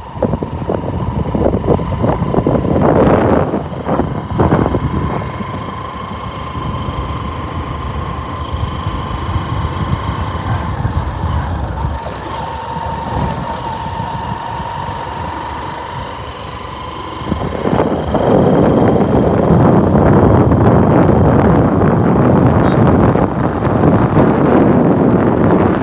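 Road vehicle driving, recorded from on board: a continuous run of engine and road noise with a steady high whine, turning louder and rougher about 17 seconds in.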